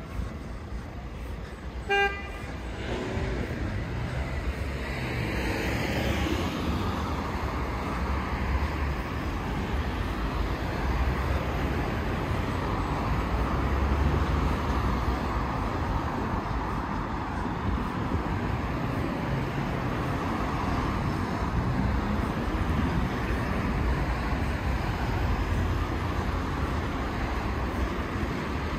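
City street traffic: a steady rumble of passing cars, with one short horn toot about two seconds in.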